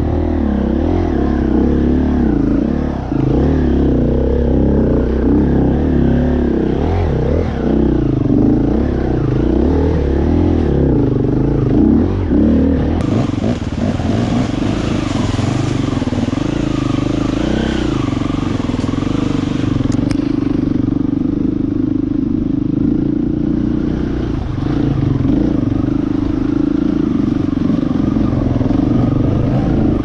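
Enduro dirt bike engine running close by, heard from on the bike, revving up and down as it is ridden over a rough trail, its pitch steadier in the second half.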